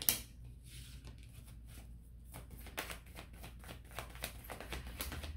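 Oracle cards being handled, shuffled and laid down on a cloth-covered table: scattered light clicks and flicks of card stock, with one sharper snap right at the start.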